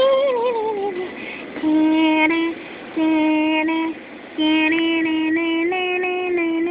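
A high voice singing: a wavering, falling 'ooo' in the first second, then a slow tune of held, steady notes in short phrases with brief pauses between them.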